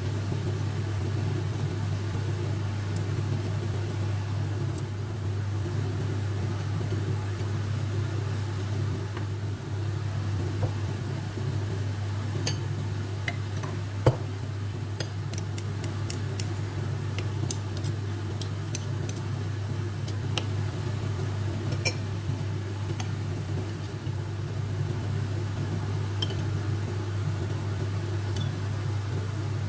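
Metal spoons clinking and scraping against a ceramic bowl as a marinade is stirred: a dozen or so sharp clicks from about halfway in, the strongest about 14 seconds in. Under them is a steady low electrical hum.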